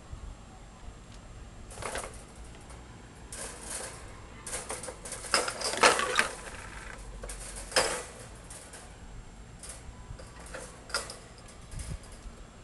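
Wire pet cage rattling and clinking as kittens climb and hang from its bars, in irregular clatters that come thickest through the middle.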